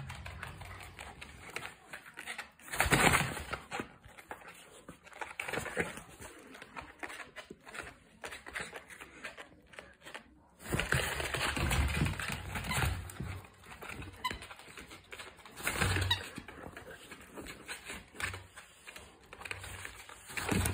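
Miniature dachshund playing with a plastic eggplant toy: scattered noisy bursts of scuffling and toy handling. The loudest comes about three seconds in, with a longer busy stretch a few seconds past the middle.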